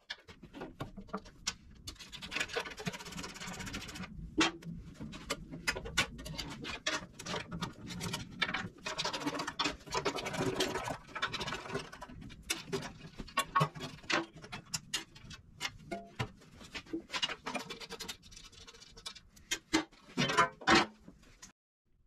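Hand ratchet clicking in short runs as bolts are backed out of a steel cover, mixed with scrapes and light knocks of metal being handled; a couple of louder knocks come near the end.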